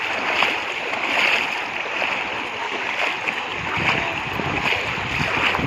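Shallow pond water sloshing and splashing as many people wade through it, pushing bamboo plunge-basket fish traps; a steady wash of water noise that swells again and again with the wading.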